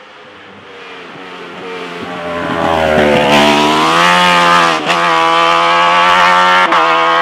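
Racing car engine drawing near and growing loud, its revs dipping and then climbing hard under acceleration, with two quick gear shifts, the second near the end.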